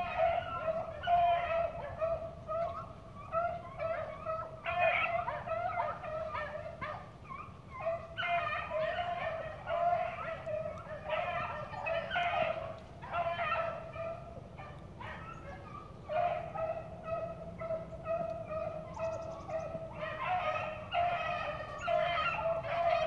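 A pack of hunting hounds baying in chorus as they run a track, many overlapping voices rising and falling in waves, easing briefly about two-thirds of the way through and then coming back strongly.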